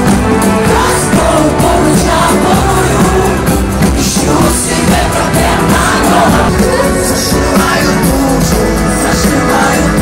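Loud live pop music from a concert sound system, with a singer's voice over the band.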